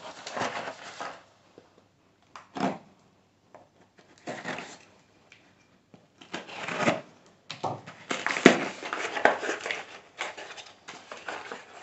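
Hands handling and opening a small plastic-wrapped cardboard box: intermittent rustling and crinkling of the plastic wrap and cardboard flaps, with quiet gaps. The handling gets busier in the second half, with one sharp click a little past halfway.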